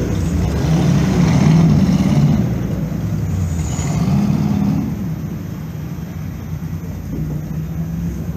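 Classic racing cars, among them a De Tomaso Pantera, a Porsche 911 and a BMW 3.0 CSL coupe, driving one after another along a pit lane, their engines rumbling and revving as each passes. Loudest in the first couple of seconds, with another swell about four seconds in, then fading as the cars move away.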